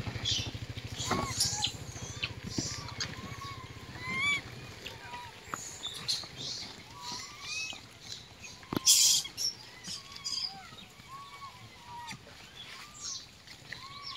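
Many short, arched chirping animal calls repeating throughout, with one sharp, loud crackling noise about nine seconds in. A motor hum fades away in the first second or so.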